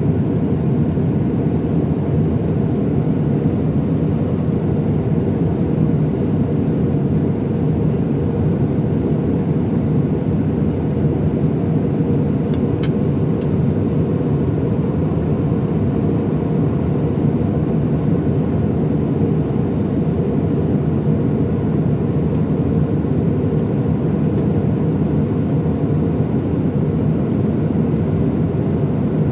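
Steady cabin roar inside an Airbus A319-100 in flight, the engine and airflow noise heard from a window seat over the wing. Two faint clicks come about thirteen seconds in.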